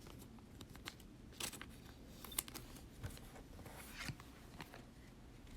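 Faint rustling with scattered light clicks, about one a second, from trading cards and a pack wrapper being handled.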